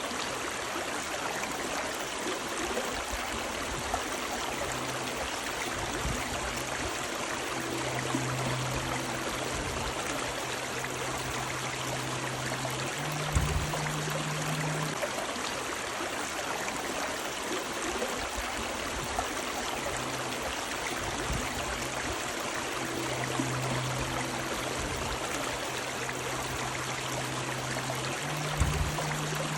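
River water running in a steady, even rush. A faint low hum comes and goes under it, and there are two short low thumps, one about halfway through and one near the end.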